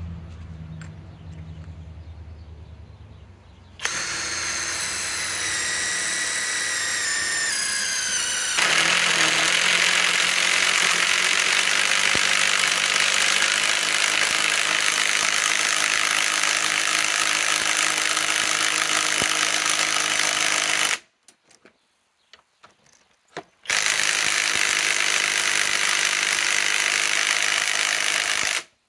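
Kobalt 24-volt compact cordless impact wrench driving a lag screw into a log. A few seconds in, the motor spins up and its pitch falls as it loads. About five seconds later the impact mechanism starts hammering and runs for about twelve seconds, stops briefly, then hammers again for about five seconds.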